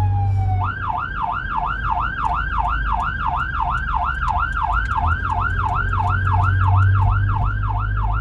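Fire department emergency vehicle siren: a slow falling wail that switches about a second in to a fast yelp, sweeping up and down about three to four times a second, over the low drone of the vehicle's engine.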